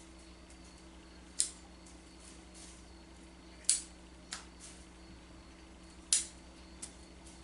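Five short, sharp snaps, spaced a second or two apart, as new shoots are cut back from a maple bonsai; three are loud and two fainter.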